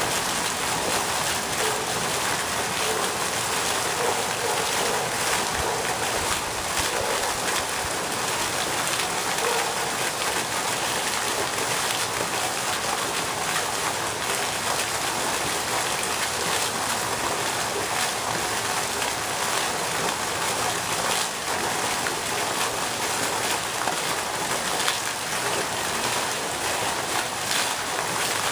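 Pond fountain's vertical water jet falling back onto the pond surface: a steady, even splashing.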